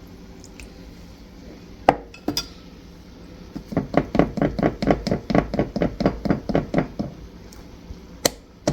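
A spoon stirring in a coffee cup, clinking rapidly against the sides at about five strokes a second for a few seconds, with a few single clinks of the spoon on the cup before and after.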